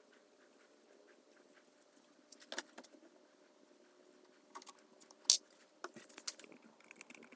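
Faint light clicks and taps of small objects being handled, with one sharper click about five seconds in and a run of quick ticks near the end, over a faint steady hum.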